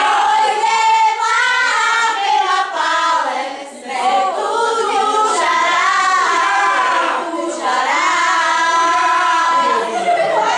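A group of voices, mostly women, singing together loudly without instruments, with some long held notes.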